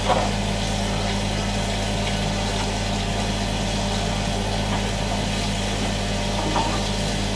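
Ninja Woodfire grill running while it cooks on medium, a steady low mechanical hum from its fan. A light knock right at the start.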